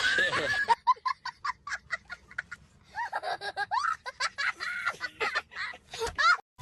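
High-pitched laughter in a quick run of short bursts, about three or four a second, with a brief lull a little before the middle.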